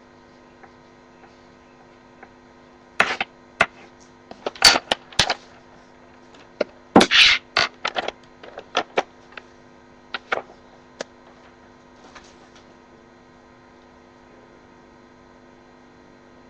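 A scattered run of sharp clicks, knocks and short rustling bursts, mostly in the first two-thirds, over a steady electrical hum.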